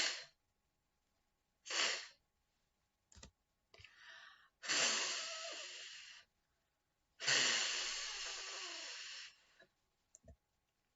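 A woman sounding the unvoiced phonics phoneme /f/: two short breathy 'f' hisses, then two long drawn-out 'fff' hisses that fade away.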